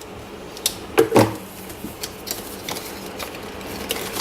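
Cube packaging being opened and handled by hand: a string of small plastic clicks and taps, with a louder knock about a second in.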